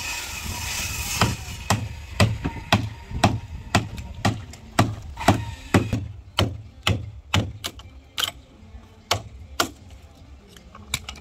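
A wood chisel struck over and over, about two blows a second, cutting through the last few centimetres of a wooden boat timber that the saw blade could not reach. The blows thin out in the later seconds, with a last one near the end.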